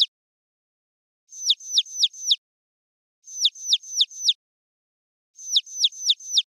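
Bird-like chirping: sharp, high chirps that fall in pitch, in quick runs of about five, repeating three times about every two seconds with silence in between.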